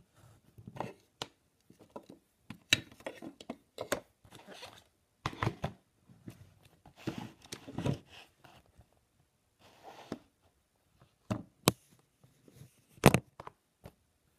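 Handling noise: irregular knocks, taps and rustles as a Nintendo 3DS is picked up and moved around close to the microphone. The loudest is a sharp knock near the end.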